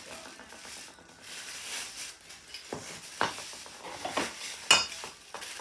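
Arm rest parts and packaging being handled: rustling with scattered light clicks and knocks, and one sharp, ringing metallic clink a little before the end.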